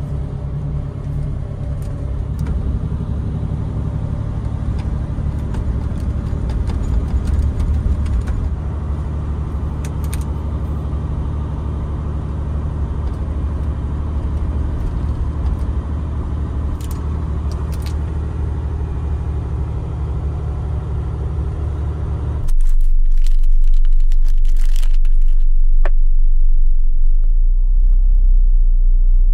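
Steady low rumble of the overnight bus's engine and road noise heard inside the passenger cabin, with a few faint clicks. About 22 seconds in it changes abruptly to a louder, deeper rumble, and the higher sounds drop away.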